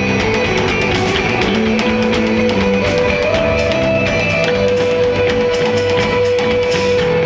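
A live instrumental desert rock band playing: electric guitar, bass guitar and drum kit. A bass line moves underneath, a guitar note is held from about three seconds in, and cymbals sound throughout.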